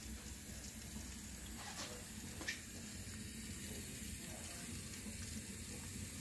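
Spatula stirring wet dental stone in a flexible rubber mixing bowl: a soft, steady wet scraping and squelching, with two light clicks about two seconds in.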